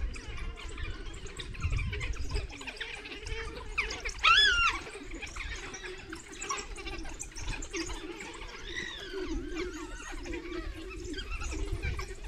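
African wild dogs calling to each other with high-pitched chirps and squeaks, and one loud call about four seconds in. This is the social chatter that the pack makes on waking from rest, before it gets active.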